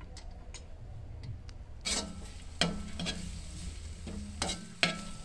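Perforated metal ladle scraping and stirring chopped onion, garlic, chillies and ginger around a wok as they fry in oil. Quiet at first, then from about two seconds in a series of short metal-on-metal scrapes, each with a faint ring.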